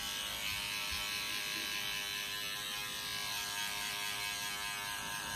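Electric razor running with a steady, even buzz.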